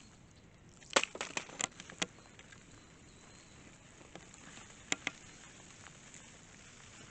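A quick run of about five sharp knocks and clatters about a second in, then two more near five seconds: digging and handling potatoes in hard, dry garden soil.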